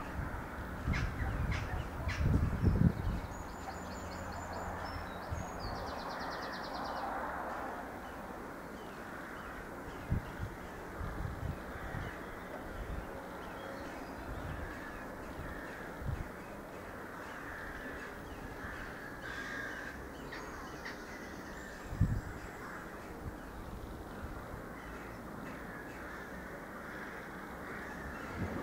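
Irish Rail 22000 class diesel multiple unit pulling away into the distance. Its engine hum fades out about seven or eight seconds in, leaving birds calling and a few short low thumps.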